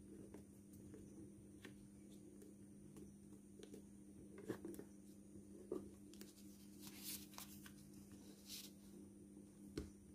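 Faint rustling and crinkling of glossy origami paper being folded and pressed into creases by hand, with a few sharper crinkles near the middle and end, over a steady low hum.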